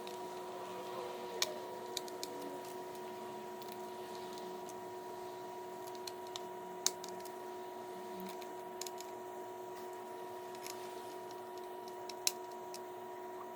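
Scattered light clicks and taps of hands handling a TV speaker and its wiring, over a steady faint electrical whine.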